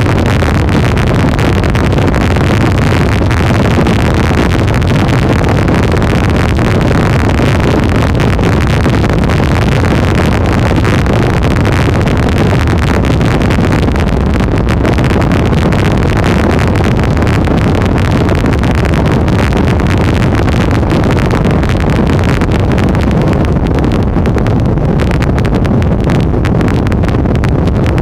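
Twin Mercury Optimax 300 two-stroke V6 outboards running at high speed, a loud steady drone mixed with wind on the microphone and the rush of the wake.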